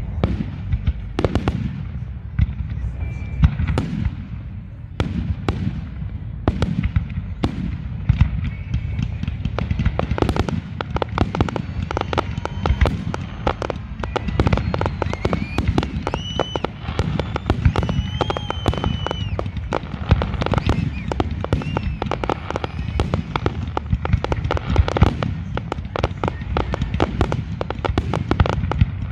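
Fireworks display: aerial shells bursting with bangs over a steady low rumble, the bangs scattered at first and thickening into a dense, rapid barrage of bangs and crackling from about eight seconds in.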